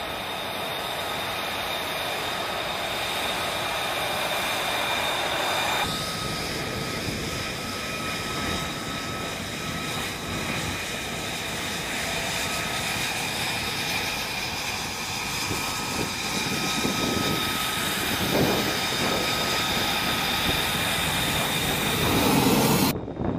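F-35B Lightning II's F135 jet engine running at taxi power: a steady high whine over a rushing noise. It shifts abruptly about six seconds in, with a few swells in the low rumble near the end.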